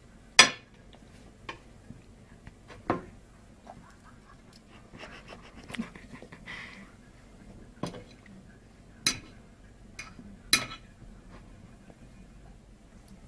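Pets sneezing: a handful of short, sharp sneezes spread out, the loudest about half a second in.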